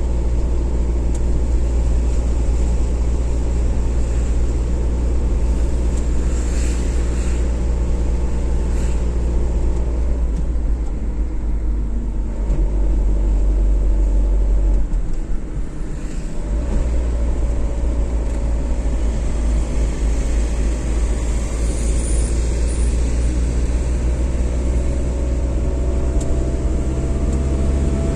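Steady road and engine noise of a car driving on a motorway: a deep, even rumble that dips and shifts briefly about halfway through.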